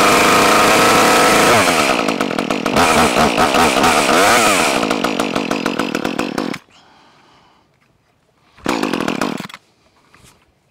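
A small two-stroke top-handle chainsaw engine, an Echo CS2511T, running on its first start after being rebuilt. It runs at high revs, then revs up and down repeatedly, and cuts off suddenly about six and a half seconds in. A second short burst of the engine comes about nine seconds in.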